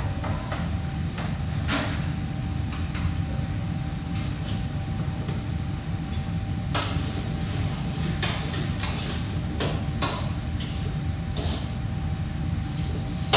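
Commercial kitchen ambience: a steady low hum of fans with a faint steady tone over it, and scattered knocks and clinks of pots and utensils, some in quick clusters.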